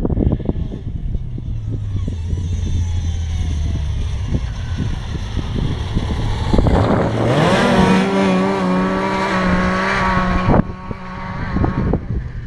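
Snowmobile engine coming in across the ice with wind buffeting the microphone. About seven seconds in it revs up and holds a high steady pitch as it passes close. The engine sound breaks off suddenly near the end.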